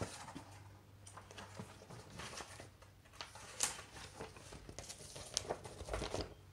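Paper pages of a picture book being handled and turned: soft rustling with light taps, a few sharper ones in the second half.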